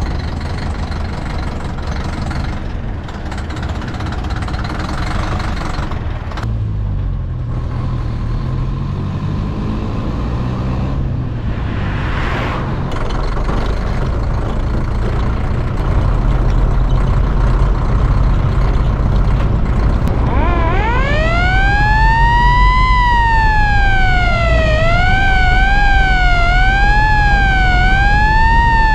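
1957 Csepel D352 fire truck's four-cylinder diesel engine running, growing louder, with a brief rise in engine pitch. About twenty seconds in, its siren starts, gliding up in pitch and then wailing up and down about once a second.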